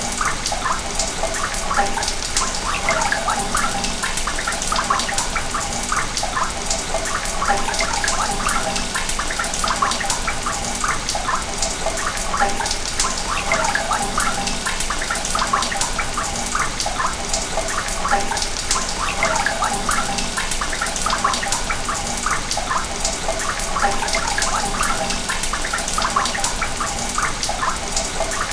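Sewage water running through pipes: a steady rush with constant small gurgles and splashes.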